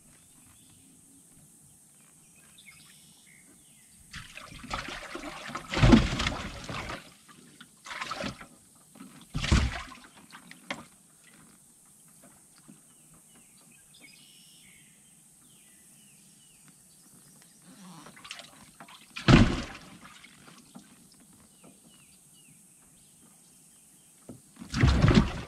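Water splashing and trickling as bass are handled in and out of a bass boat's livewell, with a few sharp knocks and thumps, the loudest about six seconds in and near the end.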